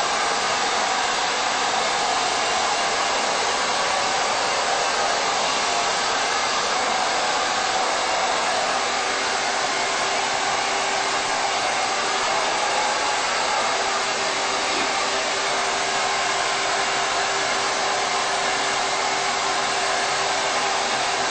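Handheld hair dryer blowing steadily as hair is dried, an even rushing hiss; a faint steady hum joins about halfway through.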